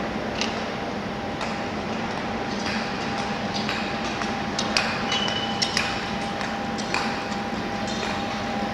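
Steady background noise of an ice skating rink during a speed skating race, with a faint steady hum and scattered sharp clicks and knocks.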